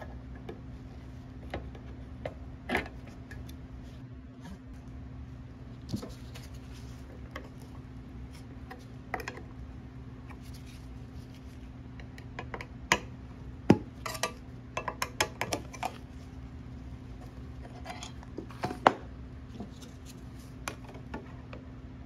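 A screwdriver prying at the lid of a metal wood-stain can: scattered metal clicks and clinks, coming thick and fast a little past halfway and again a few seconds later as the lid works loose.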